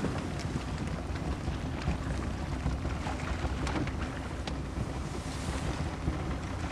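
Wind buffeting the microphone over the steady low rumble of a Zodiac inflatable boat on open water, with a few faint ticks.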